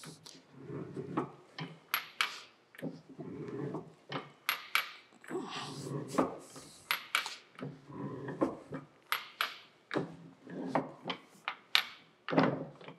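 A 5/16 inch keyway broach being pushed through a pulley bore in an arbor press: a rough grinding crunch as each tooth cuts, then a sharp metallic click, repeating about once a second and loudest near the end.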